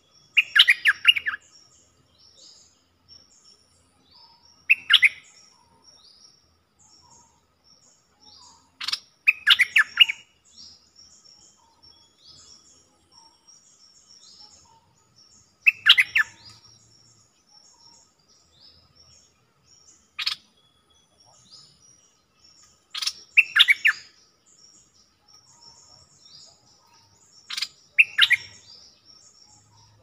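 A caged dok taeng bulbul (merbah lekir) singing short bubbling phrases of about a second, seven times, every three to five seconds. It is a newly caught bird being tried as a decoy, and its song is soft. Fainter, high chirps of other birds run throughout.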